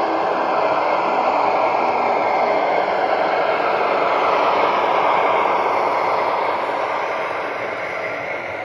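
Model diesel locomotive and flatcars rolling past on model railroad track, a steady metallic rush of wheels on rail. It grows loudest about halfway through as the locomotive passes close, then eases off as the cars follow.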